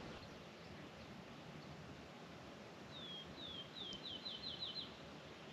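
A songbird sings one short phrase of about nine downslurred whistled notes that start about three seconds in and come faster toward the end, over faint steady outdoor background noise.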